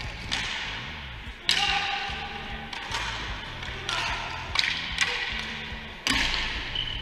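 Ball hockey play: sharp knocks of the ball against sticks and boards about once a second, each one echoing, over faint background music and voices.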